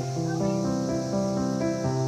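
Background music of sustained notes that change every half-second or so.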